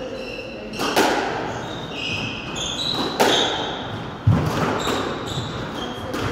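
Squash rally: the ball cracks off rackets and walls with echoing smacks about one, three and four seconds in, the last with a heavy low thud, and court shoes make short high squeaks on the wooden floor.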